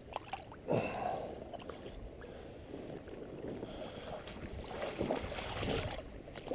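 Shallow creek water sloshing and splashing around a steelhead held by the tail in the current, over the steady rush of the flowing creek. The splashing comes in uneven swells, one rising a little under a second in.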